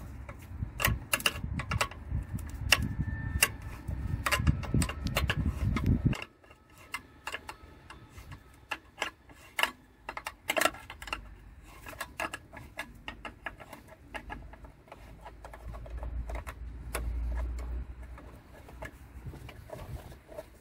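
A 10 mm metal spanner working a battery hold-down clamp nut loose, giving a run of irregular metallic clicks. A dull rumble sits under the clicks for about the first six seconds.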